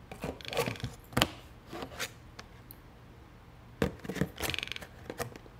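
Toco toucan's bill knocking and scraping against the inside of an empty cardboard box: a string of irregular taps and scuffs, the sharpest a little over a second in and just before four seconds, with a short fast rattle about four and a half seconds in.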